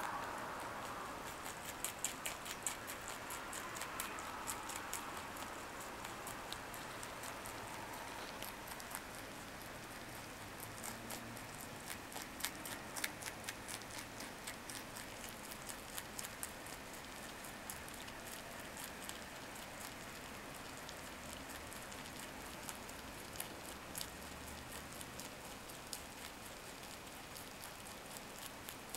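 Rabbit chewing carrot leaves: a long run of small, crisp, irregular crunching clicks as its teeth work through the stems and leaves.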